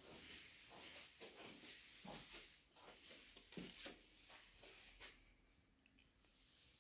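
Faint, soft footsteps on carpet, about two or three steps a second, stopping about five seconds in. The rest is near-silent room tone.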